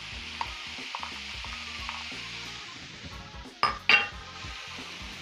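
Mixed vegetables sizzling in grapeseed oil in a frying pan, stirred with a wooden spoon, with small scraping clicks. Two sharp knocks come close together a little past the middle.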